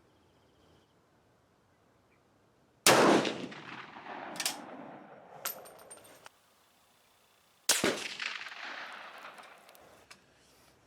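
Two shots from a Swiss K31 rifle firing 7.5x55mm GP11 ammunition, about five seconds apart, each echoing away over a couple of seconds. Between the shots come sharp metallic clacks with a brief ring as the straight-pull bolt is worked.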